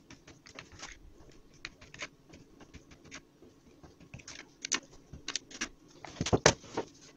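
Knife slicing through a block of dough on a glazed clay plate, the blade tapping and scraping against the plate in short irregular clicks. A louder cluster of knocks comes about six seconds in as the knife is set down on the plate and the dough is handled.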